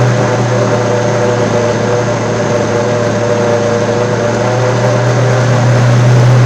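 Countertop blender motor running steadily, mixing quinoa, chia seeds, water and olive oil into a thick bread batter.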